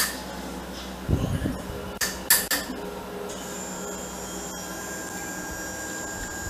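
Pestle knocking and scraping in a small clay mortar as papaya salad is pounded and mixed. There are a few sharp knocks in the first three seconds, with a dull thud about a second in, then a faint steady high whine.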